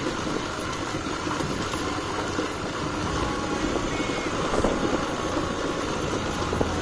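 A vehicle's engine running and road noise as it drives slowly along a street, with a couple of brief knocks partway through.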